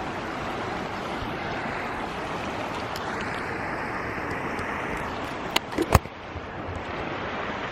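Stream water rushing steadily over rocks. A few sharp clicks come a little past halfway through.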